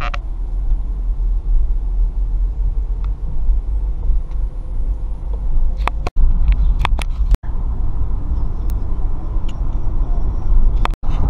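Car driving along a road: a steady low rumble of road and wind noise on a window-mounted camera's microphone, with a few sharp clicks and the sound dropping out for an instant three times.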